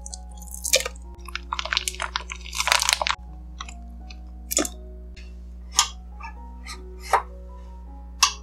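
Plastic bag crinkling and chunks of solid shea butter, cocoa butter or coconut oil crunching as they drop into a stainless steel pot of oil, followed by four separate sharp taps about a second apart, over soft background music.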